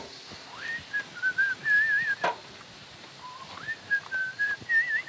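A man whistling a tune in two short phrases, each sliding up into a wavering, trilling melody, with a couple of sharp knocks in between.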